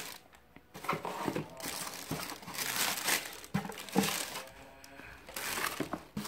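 Tissue paper crinkling and rustling as it is handled in a cardboard shoe box, in irregular bursts with a few soft knocks as a shoe is moved in and out.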